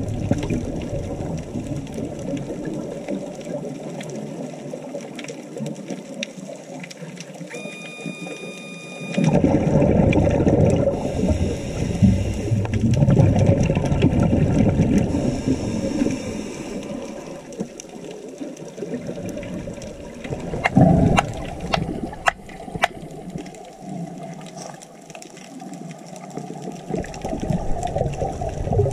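Underwater sound of a scuba diver breathing through a regulator: rushes of exhaled bubbles, the longest lasting several seconds from about a third of the way in, with a short electronic beep just before it.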